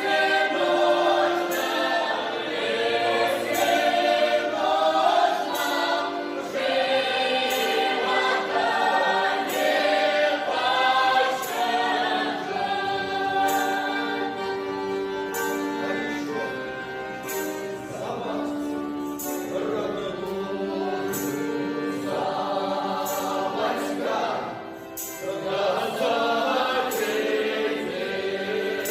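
Russian folk vocal ensemble singing a song in several parts, with a steady beat of short, sharp clicks.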